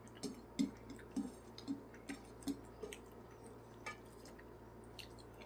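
Close-miked eating sounds: fingers pressing and wiping the last biryani rice and gravy off a ceramic plate, a run of soft wet taps and clicks that thins out after about three seconds.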